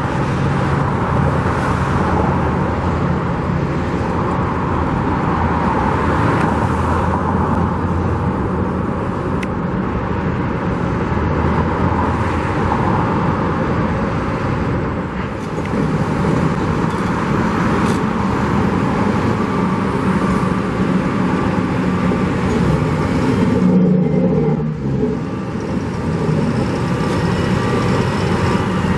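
Road traffic: cars passing by, with steady roadway noise.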